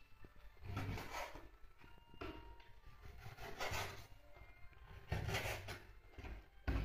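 Several irregular scraping or rubbing strokes on a rough surface, each lasting under a second.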